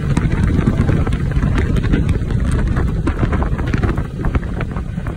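Wind buffeting the microphone on a moving motorbike, over a steady rumble of engine and tyres on asphalt.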